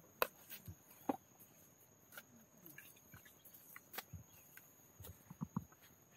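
Husked bamboo shoots being picked up from a pile and dropped into a woven basket: scattered light knocks and rustles, a few of them sharper, over a steady high insect drone.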